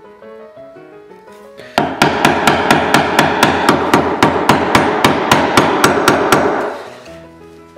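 Carver's mallet rapidly striking a bevel-edge chisel, about four blows a second, chopping the waste out of lapped dovetail sockets in a drawer front. The blows start about two seconds in and stop shortly before the end.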